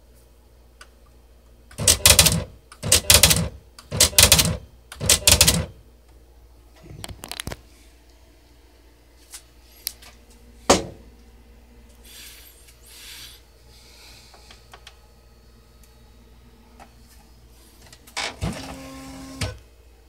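Smith Corona PWP 3 word processor's typewriter mechanism at work: four loud half-second mechanical noises about a second apart, then a single sharp click, and near the end a short motor whir with steady stepped tones.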